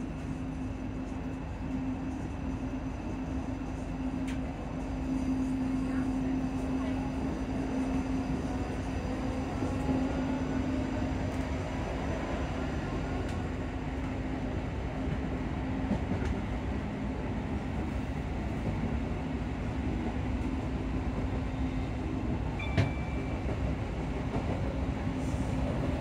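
Class 334 Juniper electric multiple unit under way, heard from inside the carriage: a steady hum from the traction motor cooling fans over rumbling wheel and track noise. About five seconds in it gets louder, with faint rising whines from the traction equipment as the train gathers speed. A single sharp click comes near the end.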